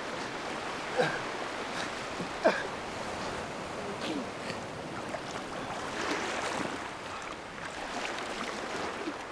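Steady rushing water noise, with a few short sounds falling in pitch about a second in, at about two and a half seconds, and again near four seconds.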